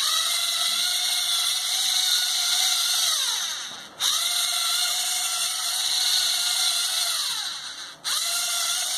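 LEGO Mindstorms NXT servomotors driving a reduction gear train, a small gear turning a large one, that works a walking robot's legs: a steady motor whine with gear noise. Twice the whine slides down in pitch and sags, then it cuts back in suddenly, at about four and eight seconds in.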